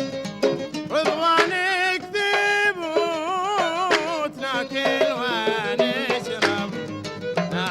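Bahraini sawt music: a violin plays a wavering, ornamented melody over a steady beat of mirwas hand-drum strokes.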